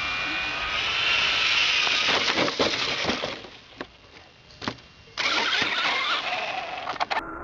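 Traxxas Slash 4x4 RC truck with a Velineon brushless motor driving fast on loose gravel: a rising electric-motor whine over the hiss of tyres on gravel. It fades for a moment with a couple of ticks, then passes close and loud again before cutting off suddenly near the end.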